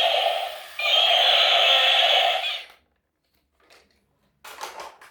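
A toy vehicle's electronic sound effect played through a small speaker: a harsh, steady buzzing tone that breaks off briefly under a second in, resumes, and cuts off suddenly after about two and a half seconds, followed by a few faint knocks.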